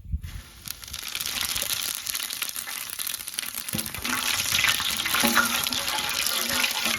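Fennel seeds sizzling and crackling in hot oil in a cooking pot. The sizzle starts suddenly as they go in, grows louder about a second in, then holds steady.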